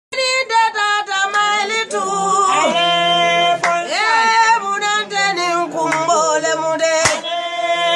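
A jali (griot) woman singing, her voice holding long notes and sliding up and down in pitch.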